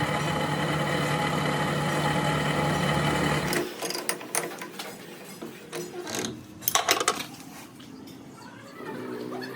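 A workshop machine running with a steady hum that cuts off abruptly about three and a half seconds in, followed by scattered metal clinks and knocks.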